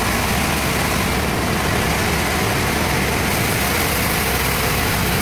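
Sawmill bandsaw running steadily, a constant loud machine noise.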